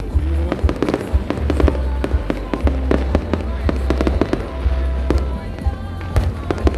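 Fireworks display: many sharp cracks and bangs of bursting fireworks in quick, irregular succession, over a low rumble that swells and fades every second or two.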